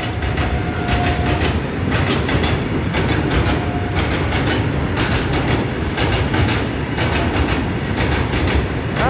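Train passing at speed: a continuous rumble of wheels with a rhythmic clatter over rail joints. A thin steady whine sounds briefly in the first second and again near four seconds.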